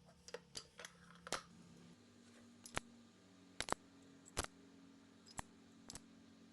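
Irregular light clicks and taps from hand work on a Mercedes-Benz OM501 engine while a piston is being fitted, about a dozen sharp ticks over a faint steady hum.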